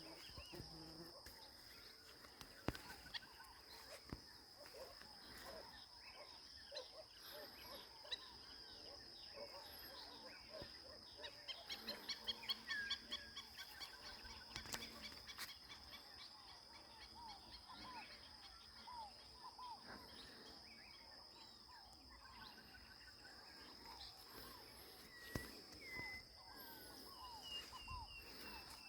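Rural nature ambience: a steady high-pitched insect drone with many short animal calls scattered over it, and a quick run of rapid calls about twelve seconds in.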